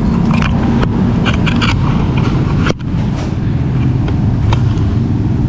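Steady low rumble of motor vehicle engines running in the background, with a few light clicks and taps of small plastic parts being handled in the first couple of seconds. The sound drops out for an instant about halfway.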